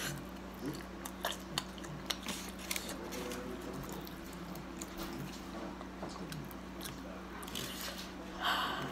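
Close-up eating sounds of a person biting and chewing a slice of thin-crust pepperoni pizza, with several short crisp crunches in the first few seconds and a louder bite near the end.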